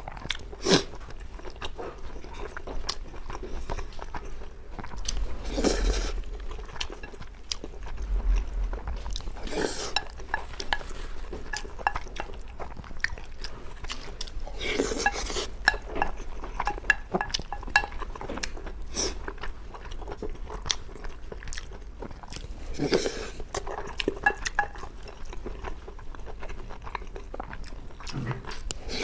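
Close-miked eating sounds: chewing and biting mouthfuls of braised pork belly and rice, with utensils clicking against the bowl.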